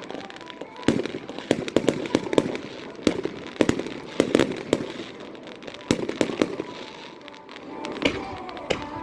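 Aerial fireworks bursting: repeated sharp bangs and crackles, some singly and some in quick clusters, coming every second or so throughout.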